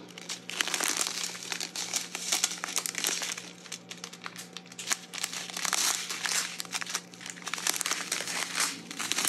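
Small plastic zip-lock bags of diamond painting drills crinkling continuously as they are handled and flipped through, a dense crackle of many tiny clicks.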